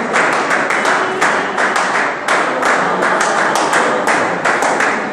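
Gospel choir clapping hands together in a steady, fast rhythm, about four claps a second.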